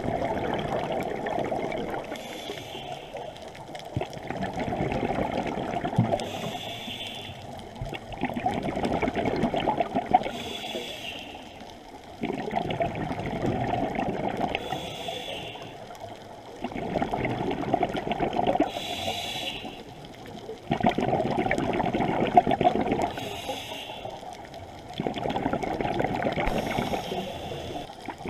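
Scuba diver's regulator breathing underwater, about seven breaths: a short hiss on each inhale, then a longer rush of exhaust bubbles on each exhale, about every four seconds.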